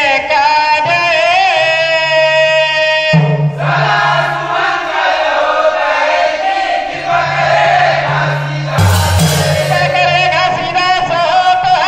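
Chhattisgarhi Panthi folk song: voices singing and chanting together in wavering, drawn-out lines over steady low held notes of accompaniment, which change pitch a few times.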